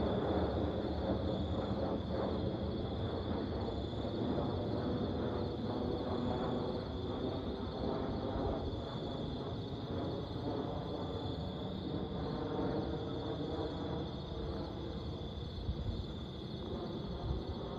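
Boeing 737-700 airliner's jet engines rumbling on landing approach, slowly fading as it moves away, with insects chirping steadily in the background.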